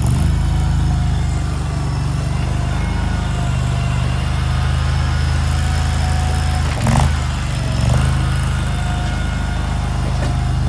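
Engine of a JQ400 mini skid steer running steadily, with thin whining tones above the low engine note. There is a sharp knock about seven seconds in and a short swell in engine sound a second later.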